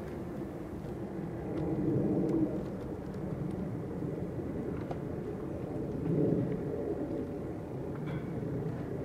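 Outdoor ambience: a steady low rumble of distant engines, swelling twice, about two seconds in and again about six seconds in, with a few faint ticks.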